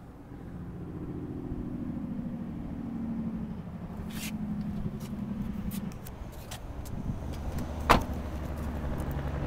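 A car door shutting with one solid knock about eight seconds in. Before it comes a few seconds of hum that slowly falls in pitch, and scattered clicks.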